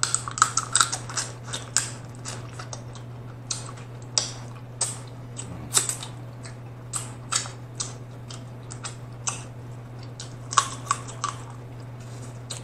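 Close-up wet mouth sounds of eating with the fingers: lip smacks, chewing and sucking seafood-boil sauce off the fingertips, coming as an irregular run of sharp little clicks. A steady low hum lies underneath.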